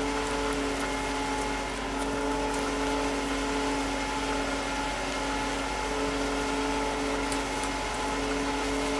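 Fuel truck's engine and fuel pump running steadily during aircraft refuelling: an even mechanical hum with a few held tones.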